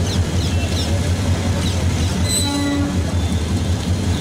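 Diesel locomotive hauling a passenger train, its engine running with a steady low rumble as it rolls slowly over yard points. A brief tone sounds about halfway through.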